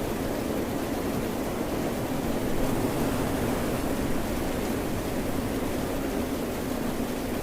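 Rain and ocean surf mixed into a steady, even rushing wash, with no distinct breakers or drops standing out.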